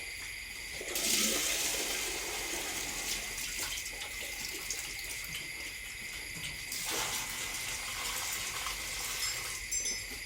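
Water rushing and splashing in two surges, one about a second in and one about seven seconds in, over a steady high buzz of insects.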